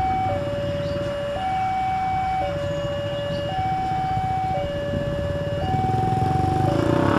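Electronic level-crossing warning alarm sounding a steady two-tone hi-lo signal, each tone held about a second. Underneath, the diesel engine of a CC201 diesel-electric locomotive rumbles as it pulls away, getting a little louder near the end.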